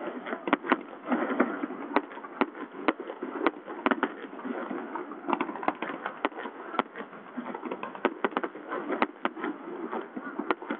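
Fireworks display: aerial shells bursting with sharp bangs at irregular intervals, about two a second, over a steady murmur of crowd voices.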